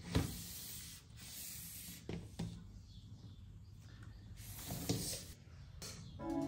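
Small plastic storage crates and makeup items being handled and set down on a desk: soft rubbing with several light knocks and taps. Background music comes in near the end.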